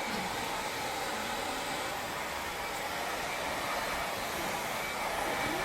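Handheld hair dryer blowing steadily, a constant rushing of air with a faint steady whine over it.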